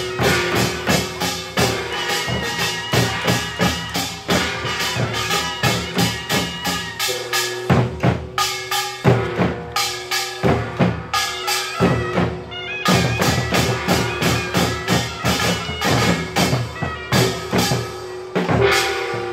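Samulnori Korean percussion ensemble playing a fast rhythm: janggu hourglass drums and buk barrel drums struck rapidly, with metal gongs ringing over them.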